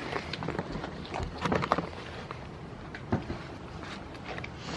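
Goats rubbing and nibbling at close quarters: irregular rustling and soft knocks, with a short busier patch about a second and a half in and another near three seconds.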